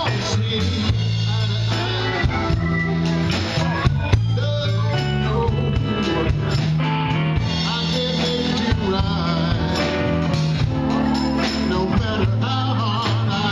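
Live band playing an amplified song: electric guitars, bass guitar, drum kit and keyboards.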